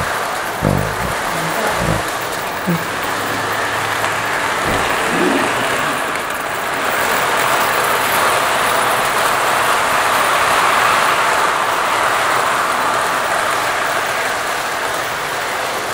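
Lionel tinplate O gauge toy train running on three-rail track: a steady rolling and motor whir that grows louder as the cars pass close, roughly midway through, with a few knocks in the first few seconds.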